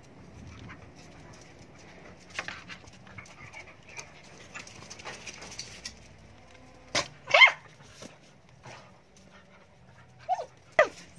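Dog barking: one loud short bark about seven seconds in, then a few shorter barks near the end, with faint clicks before.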